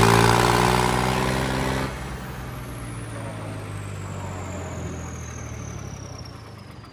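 Tractor engine running loud at a steady pitch, which drops abruptly about two seconds in to a low steady running. A faint high whine slowly falls in pitch as the engine settles.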